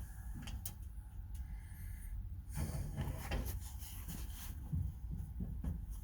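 Hands working tool box parts: scraping and rubbing with scattered small clicks and knocks as a drawer and its slides are fitted into line.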